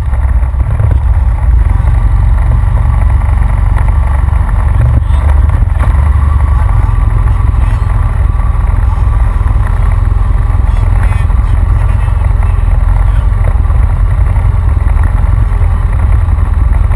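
Honda Rancher ATV engine running steadily while riding along a dirt track, heard from a camera on the front rack, with a heavy low rumble from wind on the microphone.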